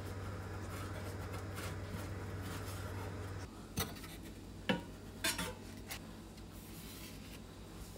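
A steady low hum that stops about three and a half seconds in, then four light clinks and knocks of hard objects being handled.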